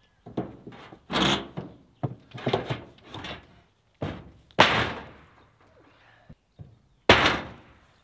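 Irregular knocks and thuds from an old wooden shed being pulled apart, with three heavier bangs: about a second in, just past halfway, and near the end.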